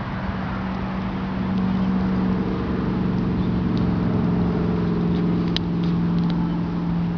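An engine running steadily with a constant low hum; its overtones fill in about two seconds in and the pitch sags slightly. A rough rumble of wind on the microphone runs underneath.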